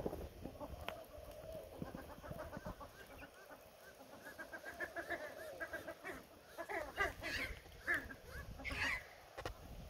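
A flock of Australian wood ducks calling: runs of soft, quick chattering notes, with a few louder calls near the end.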